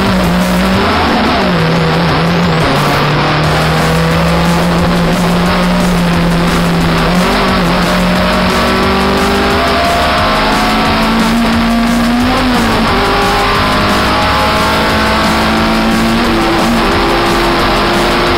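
Toyota Starlet KP47 race car's engine heard from inside the car at racing speed, its note holding, dropping and climbing again several times through the corners and straights, with background music mixed over it.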